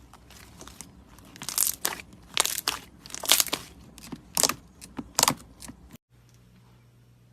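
Slime being squeezed and pressed in the hands, crackling and crunching in a quick series of short bursts. It breaks off about six seconds in, leaving a faint low hum.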